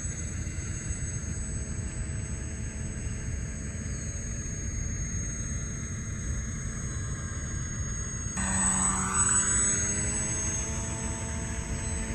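Radio-controlled Magnus-effect twin-rotor aircraft in flight, its motors and spinning rotors droning over a steady low rumble. About eight seconds in, its note grows suddenly louder and fuller, with a sweeping tone in the upper range.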